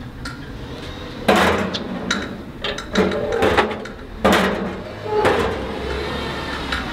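Metal pull-down chute door of a USPS blue collection mailbox clanking open and banging shut as postcards are dropped in, a few loud clanks.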